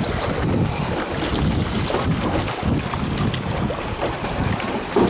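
Wind buffeting the microphone as a steady low rumble, over water washing around a small rowed sampan.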